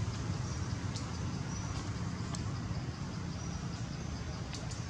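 Steady low rumble and hiss of outdoor background noise, with faint short high chirps repeating throughout and a couple of sharp clicks near the end.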